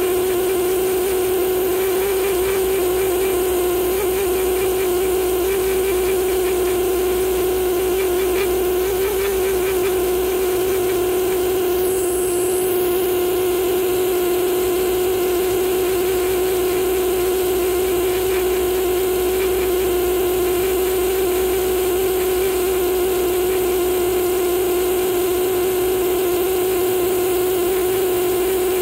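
Pneumatic air scribe buzzing steadily at one even pitch as its fine needle chips stone away from a Green River fossil fish's teeth.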